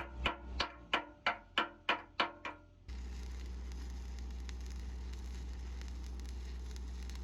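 A short percussive musical phrase of about eight evenly spaced, pitched strikes, roughly three a second. It cuts off after about three seconds into a steady low hum and hiss.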